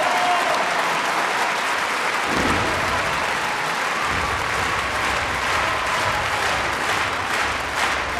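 Large concert-hall audience applauding. Near the end, sharp, evenly spaced beats come in over the clapping.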